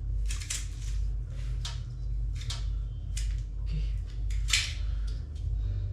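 Irregular short scrapes and clicks from hands and tools working at kitchen fittings, about a dozen, the loudest some four and a half seconds in, over a steady low hum.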